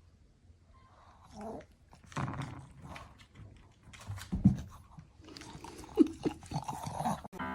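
A dog's small noises: scattered clicks and rustles as it moves and mouths at something, with a single thump about four and a half seconds in.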